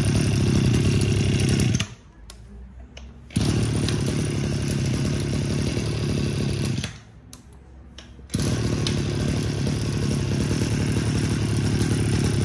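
Small 22cc two-stroke engine on a handheld petrol tool, held at high revs. Twice the throttle is let off to a quiet idle for about a second and a half, then opened again.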